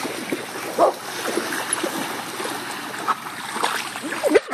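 Water splashing and lapping as dogs wade and swim through shallow lake water, with a few short dog vocalizations. The loudest comes about a second in, and more follow near the end.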